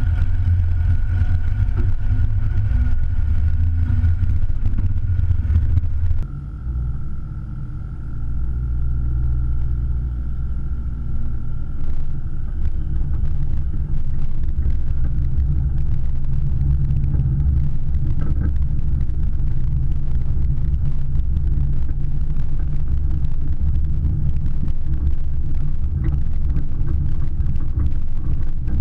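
Car driving along a sandy dirt track: a steady low engine and road rumble picked up by a camera mounted on the front of the car. It drops briefly quieter about six seconds in, then settles back to the same level.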